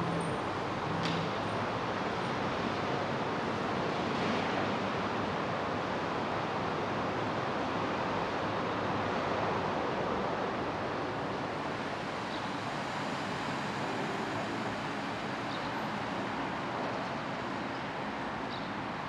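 Steady city background noise: an even hum of distant traffic, with a faint tick about a second in.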